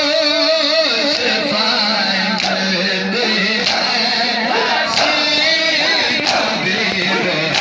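A crowd of men chanting a noha (mourning lament) together, with sharp slaps of hands striking bare chests in matam cutting through at irregular points.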